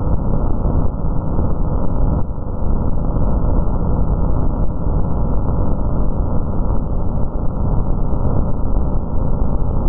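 Loud, dense, low-pitched computer-generated noise played by the Core.exe trojan while its screen effects run, holding steady with a brief dip about two seconds in.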